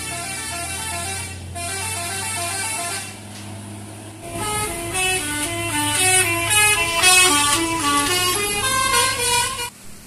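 Basuri telolet multi-tone bus horn playing a quick melody of stepped notes over a bus engine's low steady hum. The melody is softer at first, louder from about four seconds in, and cuts off suddenly near the end.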